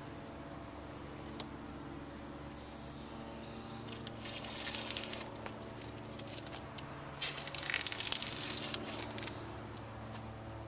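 Blue painter's tape being peeled off a freshly painted boat hull, with a ripping crackle about four seconds in and a longer, louder one about seven seconds in. A single sharp click comes about a second in.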